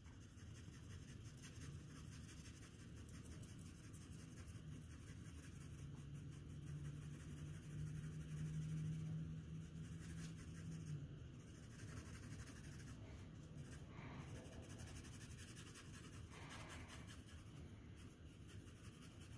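Graphite pencil scratching faintly on paper in repeated shading strokes, blending the values across a drawn cylinder. A steady low hum joins in for a few seconds in the middle.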